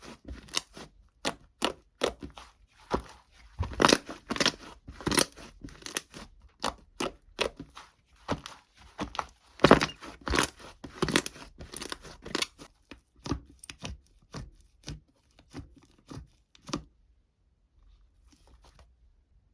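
A rapid, irregular run of crisp crunching and crackling noises that stops about seventeen seconds in, followed by a few faint ticks.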